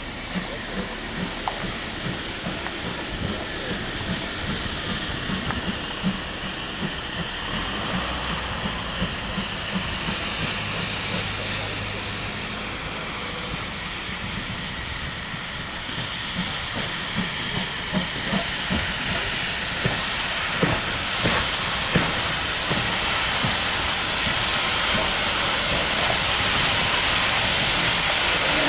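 GWR 'Large Prairie' 2-6-2T steam tank locomotive No.4160 working towards and past, its steam hiss and exhaust beats growing steadily louder as it approaches.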